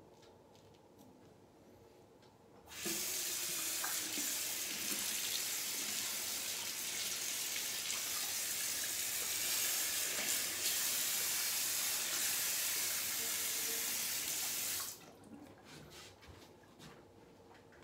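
Bathroom sink tap turned on about three seconds in, running steadily for about twelve seconds, then shut off suddenly.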